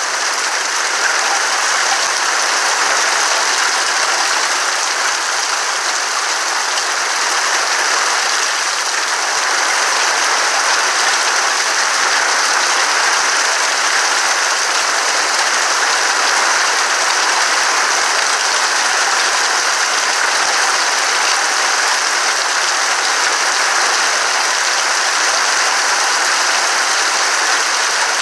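Rain falling on tree leaves, a steady dense patter.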